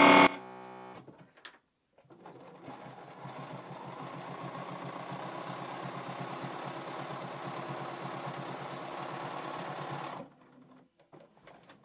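Bernina B 780 sewing machine stitching a straight seam through two layers of knit fabric: it starts about two seconds in, picks up speed, runs at a steady rapid stitch, then stops about ten seconds in.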